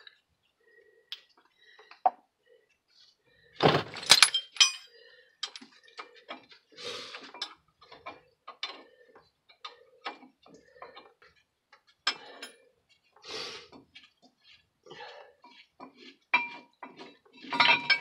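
Scattered metal clinks and clanks of wrenches and sockets working the brake caliper mounting bracket bolts on a truck's front steering knuckle, with louder clatters about four seconds in and near the end.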